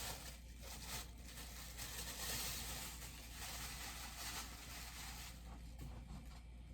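Packaging rustling and being handled while a bobblehead is unwrapped from its box, busiest in the first five seconds and dying down near the end.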